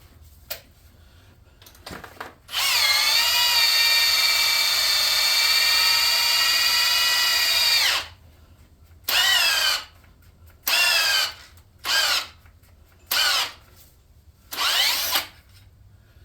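Cordless drill drilling out a stripped head bolt hole in an aluminium Chevy LS block: one long run of about five seconds, its whine sagging as it starts, then five short bursts. The bit drags in the block, which the machinist calls gummy and suspects has been hot, leaving the aluminium soft.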